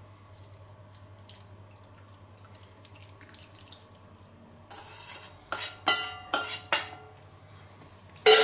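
Metal spoon scraping and knocking against a stainless-steel mixing bowl, about five ringing clanks in quick succession a little past halfway and one more near the end. Before them, a faint trickle of broth pouring into the clay roaster.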